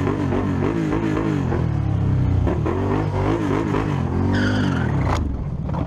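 Motorcycle engine running steadily while filtering between lanes of traffic. About four and a half seconds in comes a short high squeal of skidding tyres, and just after five seconds a sharp crack as the bike collides with a car pulling across it.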